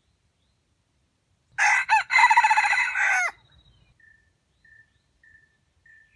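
Red junglefowl rooster crowing once, a short loud crow of under two seconds, followed by faint short high chirps repeating at a steady pace.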